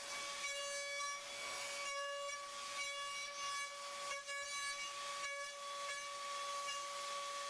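Datron M8Cube milling machine's high-speed spindle whining at a steady high pitch while milling, with a hiss of cutting that swells and fades about once a second.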